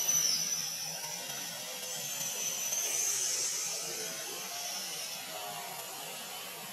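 Baby long-tailed macaque screaming in thin, very high-pitched whines: a loud one right at the start that dips at its end, then a fainter drawn-out one in the middle.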